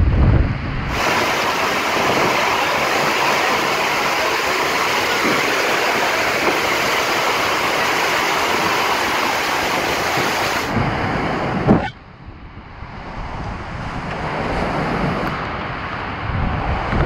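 A squall with winds over 60 knots: a dense, steady rush of wind and heavy wind-driven rain. About twelve seconds in it drops suddenly to a quieter gusting wind that builds again toward the end.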